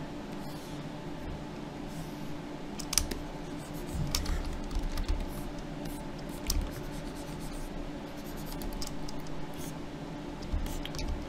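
Scattered light clicks and scratchy taps of a computer keyboard and pen tablet in use, a few seconds apart, over a steady low electrical hum.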